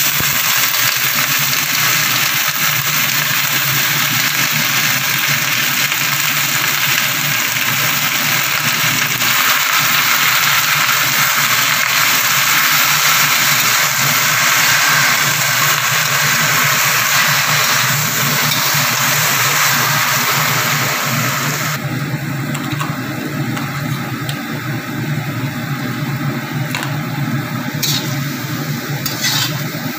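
Leafy greens sizzling loudly in a hot metal wok as they are stir-fried; the sizzle eases about 22 seconds in, and the metal spatula taps against the wok a few times near the end. A steady low hum runs underneath.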